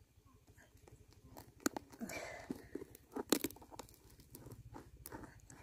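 Faint, irregular light clicks and knocks with a brief crunching, scraping noise about two seconds in, the loudest knocks coming near the middle.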